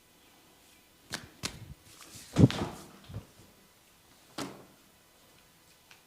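Hands striking skin during a head massage: a few sharp slaps and taps, the loudest and fullest about two and a half seconds in.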